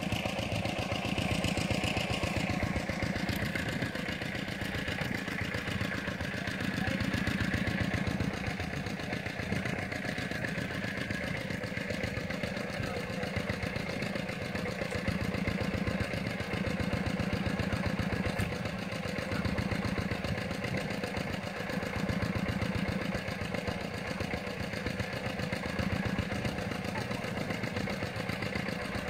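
A small engine running steadily at idle, with a fast even pulse.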